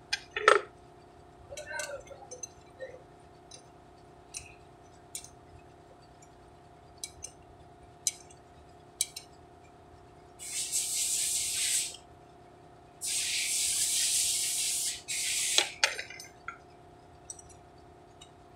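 A spray hissing in three bursts, the first about a second and a half long, the second about two seconds, and the last short. Light metallic clicks and taps of parts and tools being handled come and go throughout, over a faint steady hum.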